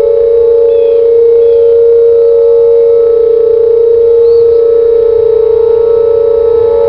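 Whelen WPS 2800-series electronic outdoor warning sirens sounding the steady alert tone: a loud, held tone with a second, slightly higher tone from another siren alongside it, wavering a little in level. Faint bird chirps come through about a second in and again near four seconds.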